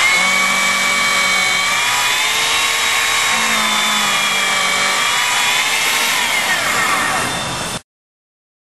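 A chainsaw running steadily while working on ice blocks, its pitch wavering slightly and dropping briefly about six seconds in, before the sound cuts off suddenly.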